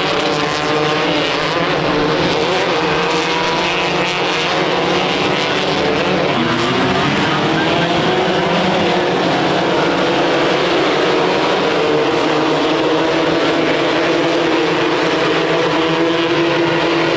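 Engines of off-road race vehicles running hard on track, several engine notes overlapping and rising and falling in pitch as they rev.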